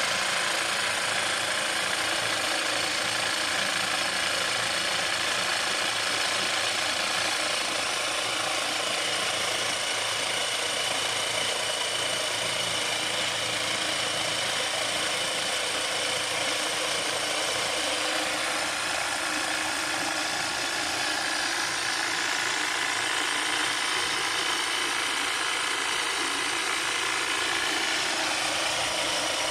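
Homemade 12-volt water pump driven by an old motorcycle starter motor, running steadily, with water gushing out of the outlet pipe and splashing onto wet ground.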